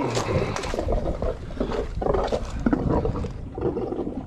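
Irregular crunching and rustling as a person steps over loose gravel and pushes past a bush, with rumbling low handling noise on the microphone.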